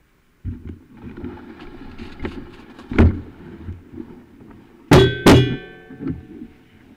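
Mountain bike setting off and riding over a bumpy, snowy trail, heard close up on the bike: a low rattling rumble from the tyres and frame, starting about half a second in. A sharp knock comes about three seconds in, and two loud metallic clanks with a brief ringing come about two-thirds of the way through as the bike jolts over bumps.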